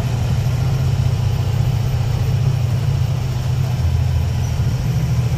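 Motorcycle engine running steadily while riding, a constant low hum with road noise.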